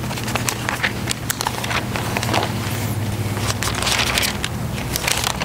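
Thin Bible pages being leafed through close to a microphone: a run of paper crackles and swishes, busiest about two thirds of the way in.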